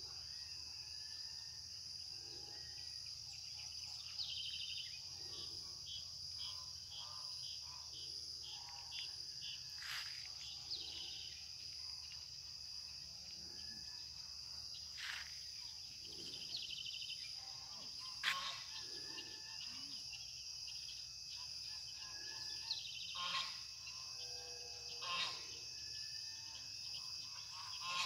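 Insects chirring in a steady high-pitched drone, with scattered short chirps and calls and a few sharp clicks over it.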